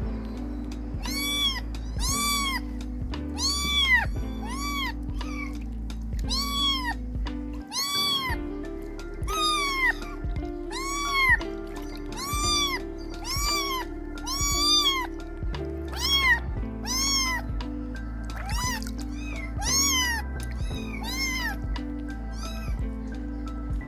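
Kitten meowing over and over in high-pitched calls, each rising and falling, about one a second, over steady background music.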